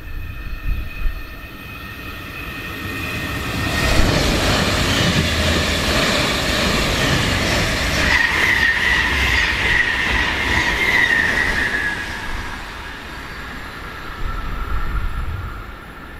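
DB class 422 S-Bahn electric multiple unit running past close by, its wheel and running noise building up with a high steady whine over it. The whine is strongest in the middle of the pass, then eases off.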